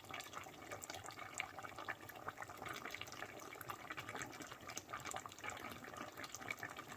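Thick lamb and baked-bean stew bubbling in a pot on the heat, a faint, irregular patter of small pops and bubbles.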